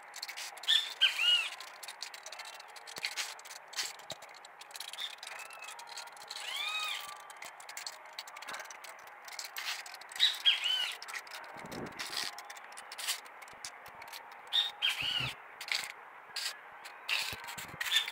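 Birds calling outdoors: short rising-and-falling chirps, a few at a time, repeated every few seconds. Faint clicks and a couple of low bumps sound in between.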